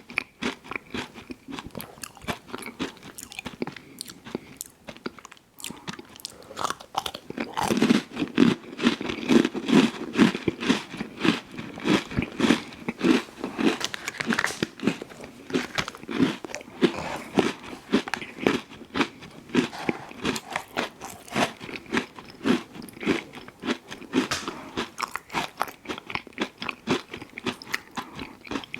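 Close-miked chewing and crunching of ice cream sandwiches, with a fast run of small crisp mouth clicks. The chewing thins out briefly early on, then grows busier and louder from about eight seconds in.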